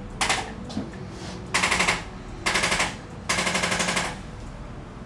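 Four short bursts of rapid mechanical tapping, each under a second long, from a handheld percussive device worked in quick bursts.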